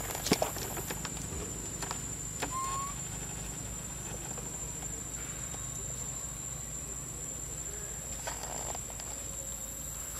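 Outdoor ambience dominated by a steady, high-pitched insect drone over a low hum. There are a couple of sharp knocks just after the start and a short rising chirp about two and a half seconds in.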